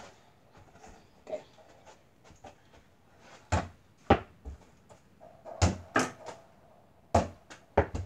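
A run of separate sharp thumps and knocks at irregular intervals, louder and closer together in the second half, typical of a tiny basketball bouncing on the floor and off the walls.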